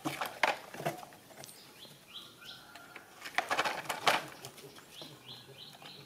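Knocks and rustling as small monkeys handle a plastic toy dump truck, with a few short high chirps between.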